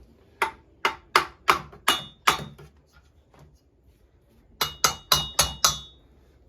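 Hammer tapping on metal: six sharp strikes, then after a short pause five quicker ones, some with a brief metallic ring.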